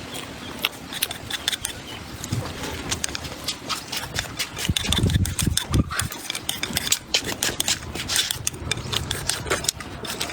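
Close-miked eating: chewing and slurping, with many short wet clicks and smacks and a few low thumpy bursts about halfway through.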